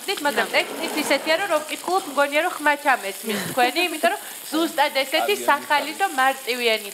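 A woman talking in Georgian, in a lively, fast-changing voice.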